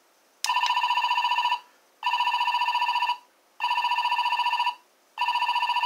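A toy robot's electronic sound chip plays a warbling, telephone-like ring in four bursts of about a second each, with short pauses between them.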